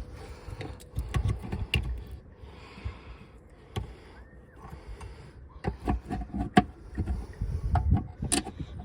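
Irregular clicks, taps and knocks of an LED light fitting's cast aluminium housing being handled and worked open by hand, with a couple of sharper knocks in the second half.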